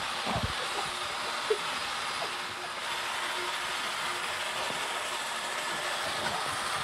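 Steady rattling rumble of a metal roller conveyor as a person is pushed along it head first.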